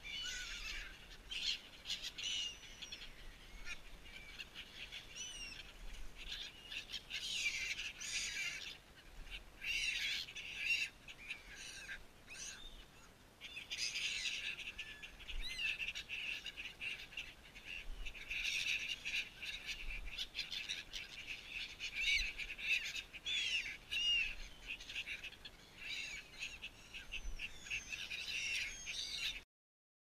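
A flock of gulls calling: many short, high calls overlapping almost without pause, with a couple of brief lulls. The sound cuts off suddenly near the end.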